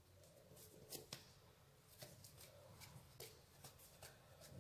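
Faint handling sounds of hands pinching shut and working a ball of filled dough, with scattered light clicks and taps.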